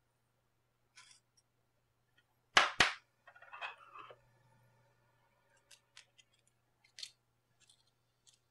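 Two sharp clicks in quick succession, then about a second of scraping with a faint ringing tone, then a few scattered faint clicks.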